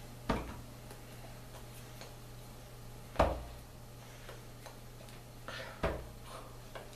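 Three sharp slaps of hands, about three seconds apart, with a few softer taps near the end, over a steady low hum.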